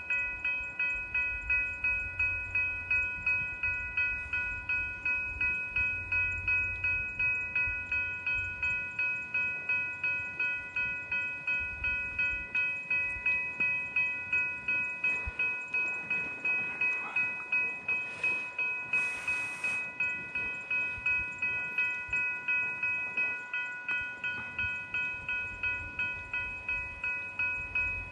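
Railway level-crossing warning bell ringing at a steady pace, a bit over two strokes a second, each stroke ringing briefly. A low rumble runs under it for the first third and again near the end, and a short hiss comes about two-thirds of the way through.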